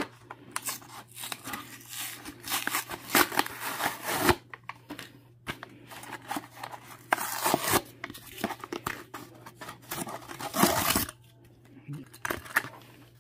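A cardboard-and-plastic toy blister pack being torn open by hand: irregular ripping of the card and crinkling of the plastic bubble, coming in bursts and loudest a few times, with the last burst a couple of seconds before the end. A faint low hum runs underneath.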